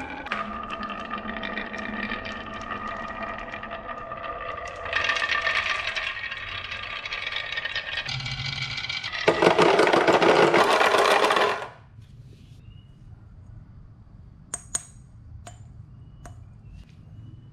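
Marbles rolling down a wooden marble run with a steady ringing rumble, then a loud rush of rolling a little past the middle, then a few sharp clicks of marbles striking near the end.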